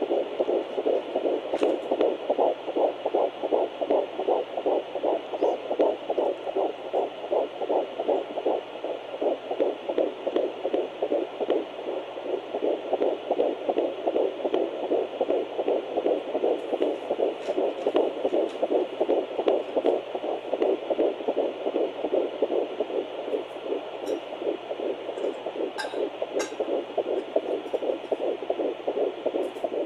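Fetal heartbeat at 11 weeks 3 days, played through a Doppler monitor's speaker as rapid, even pulses over a faint steady hum.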